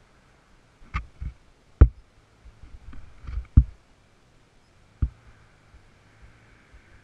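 A handful of dull knocks and thumps, about five in all, the loudest near two seconds and three and a half seconds in, as the stuck youth 90cc ATV is shoved and jostled against the tree, over a faint low hum.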